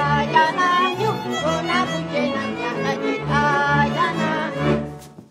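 Slovak folk string band of fiddles, double bass and cimbalom playing a couple-dance tune, a fiddle melody with slides over a steady bass beat. The tune ends a little before the close.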